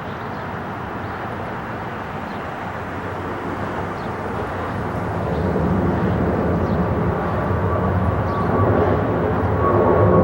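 Jet engines of a Boeing 777 during takeoff: a steady rumbling roar that grows louder about halfway through, with a thin steady whine coming in near the end.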